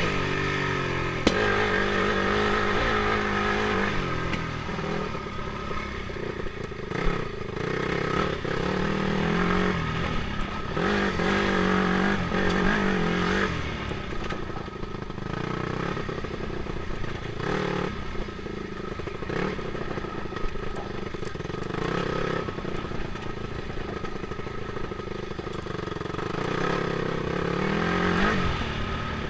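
Dirt bike engine revving up and down as the throttle is opened and eased off over and over while riding a rough trail. A sharp click about a second in.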